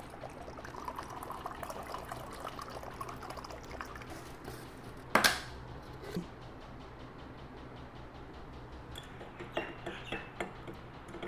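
Liquid, likely water, being poured into a container for a few seconds. A sharp knock comes about five seconds in and a few light clicks near the end.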